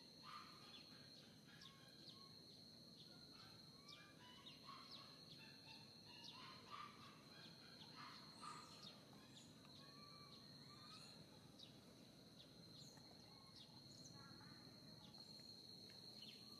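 Faint outdoor ambience: a steady high-pitched insect drone, with many short chirps and calls scattered over it.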